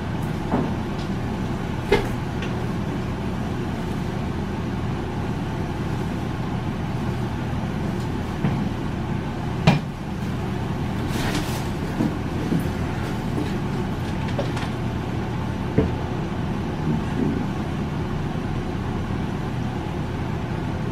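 A steady low mechanical hum, with a few short faint clicks and taps scattered through it.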